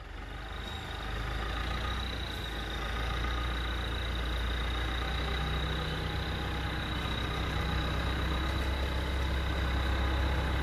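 Scania diesel engine of a log-hauling tractor running, growing louder over the first couple of seconds as it approaches, then holding a steady low engine note.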